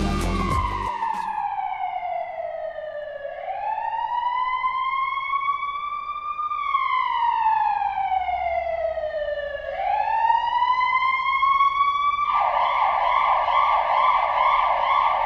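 Electronic ambulance siren from a Bruder toy ambulance. It gives a slow wail that falls, rises, falls and rises again. About three seconds before the end it switches to a fast warble.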